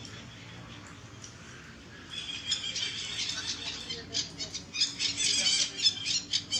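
Rapid, high-pitched chirping calls, many in quick succession, starting about two seconds in.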